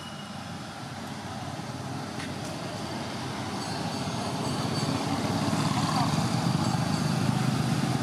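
A motor vehicle's engine rumbling, growing steadily louder for about six seconds as it approaches and then holding.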